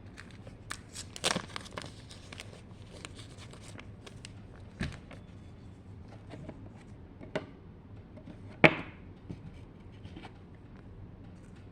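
Baseball trading cards being handled and flipped through: scattered soft rustles, slides and clicks, with two louder card snaps, about a second in and near nine seconds in.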